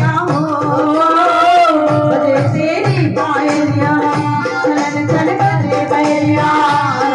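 Hindu devotional bhajan played live: an electronic keyboard carries a sliding melody over a steady drone, with a hand-drum beat underneath.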